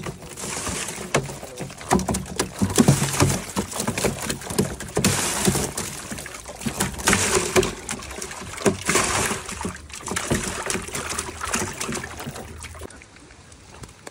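Live catfish flapping and slapping inside a cast net on wet ground, with the mesh rustling as they are worked free by hand. Irregular wet slaps and rustles that die down near the end.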